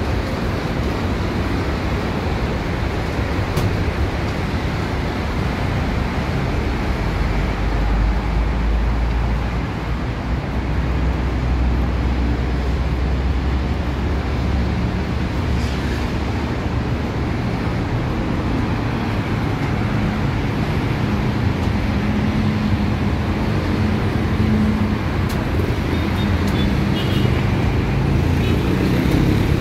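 Steady city road traffic noise: a continuous rumble of vehicles on the roads and flyover below. A heavier engine drone swells for several seconds about a quarter of the way in and again past the two-thirds mark.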